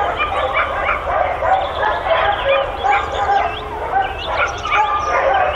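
A chorus of many boarding-kennel dogs barking at once, calls overlapping without a break, with a few longer drawn-out cries near the end.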